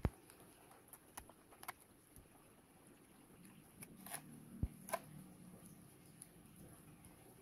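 Plastic blister pack and card backing of a Hot Wheels die-cast car being handled as tape is peeled off it: scattered soft clicks and crinkles, the sharpest right at the start and a couple more about four to five seconds in.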